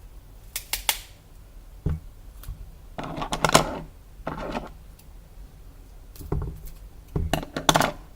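Packaging being handled and opened by hand: about five short bursts of rustling and clicking, the loudest about three and a half seconds in and again near the end.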